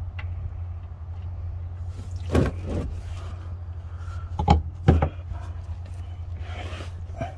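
A few sharp metallic knocks and clanks, three of them loudest, over a steady low hum, from tools and the removed drain plug being handled under the truck as the engine oil drains.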